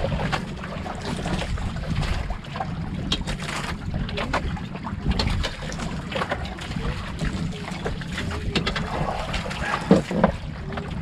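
Wind on the microphone and water around a bangka outrigger boat's hull, a steady low rumble. Scattered light clicks and knocks from people eating off plates on the deck, the loudest near the end.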